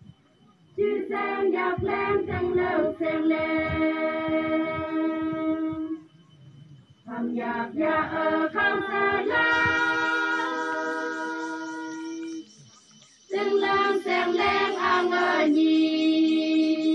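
A group of women singing a Naga folk chant in three phrases, with short pauses between them; each phrase ends on a long held note.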